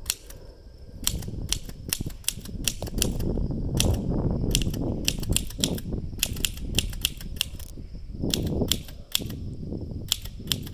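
Barr portable typewriter being typed on: its type bars strike the paper in quick, irregular keystrokes, several a second, with short pauses between bursts.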